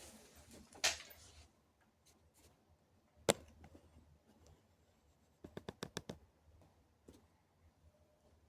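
A few sharp clicks and knocks: a short rustle about a second in, one sharp click a little past three seconds, then a quick run of about eight clicks.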